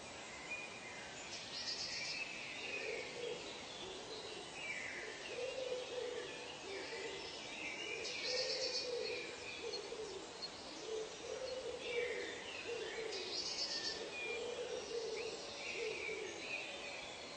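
Forest birds calling: a low call repeated over and over, about every one and a half to two seconds, under higher sliding calls and a few brief high trills.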